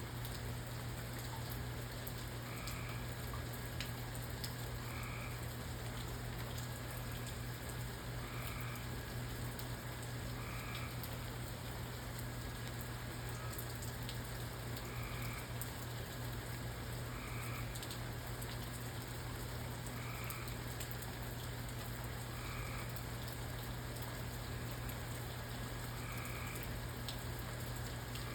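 Steady rain with scattered pattering drops, and a frog giving short croaks about every two seconds over it, with a low steady hum underneath.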